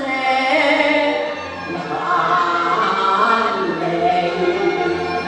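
Cantonese opera singing with instrumental accompaniment: a drawn-out vocal line held and bent over several notes.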